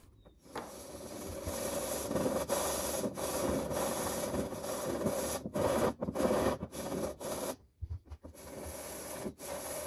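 A small oak block rubbed back and forth by hand on a sheet of sandpaper laid flat on a bench: a continuous scratchy rasping that rises and falls with each stroke, stopping briefly about eight seconds in when the block is lifted.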